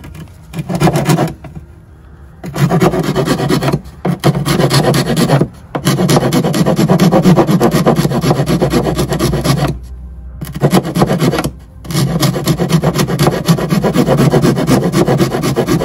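Hand file rasping back and forth against the edge of an RV battery compartment opening, filing material away to give clearance for the battery posts. It comes in several runs of quick strokes with short pauses between them.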